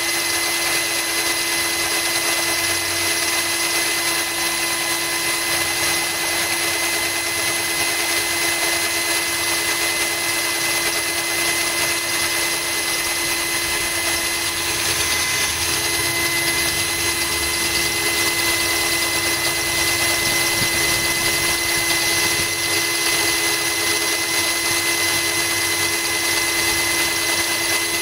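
Cordless drill running steadily at constant speed, its bit grinding a hole into a glass bottle that is kept wet by a trickle of water.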